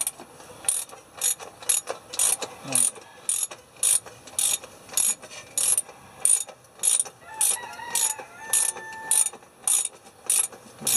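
Hand socket ratchet clicking in a steady run of short strokes, about two to three a second, as it backs out the through bolt of a diesel truck engine's oil filter canister.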